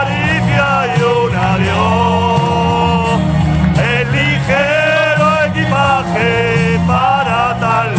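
Live band music: a lead melody with vibrato in long held notes over a steady bass line.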